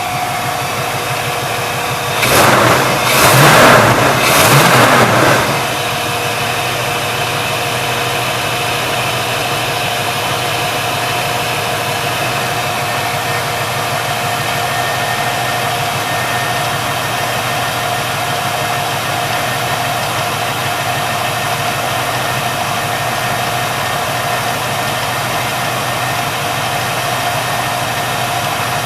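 Pontiac 455 V8 of a 1973 Trans Am running at a fast idle after a rocker arm adjustment, its idle set high ahead of a carburettor re-tune. About two seconds in, three loud surges of noise come over roughly three seconds, then the engine settles back to a steady idle.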